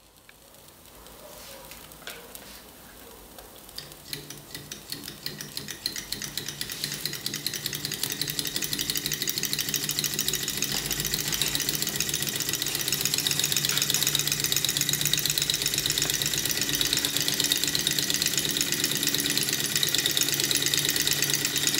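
All-metal model Stirling engine with a walking beam starting up on a spirit burner's heat and coming up to speed: its pistons, beam and crank linkage make a fast, even run of mechanical ticks over a low hum. It grows louder over the first several seconds, then runs steadily.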